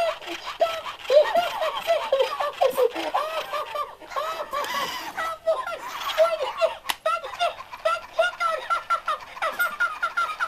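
TMX Tickle Me Elmo toy's recorded voice laughing in rapid high-pitched bursts through its built-in speaker, as the toy goes through its rolling-on-the-floor laughing routine. There is a sharp click about seven seconds in.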